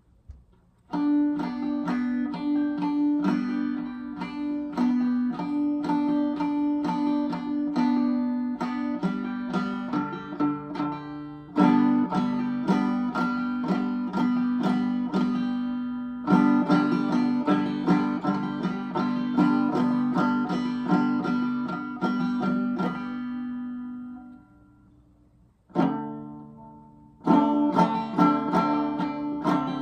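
A five-string banjo played clawhammer style by a beginner: quick plucked notes over a steady ringing drone, stopping briefly about three quarters of the way through and starting again.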